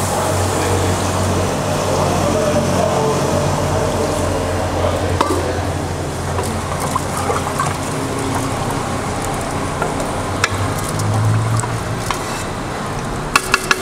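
A pot of lamb and tomato-paste sauce sizzling and bubbling on a gas burner just after water has been added to the hot oil, while a spoon stirs it. A spoon clinks on the pot a couple of times, then several times in quick succession near the end.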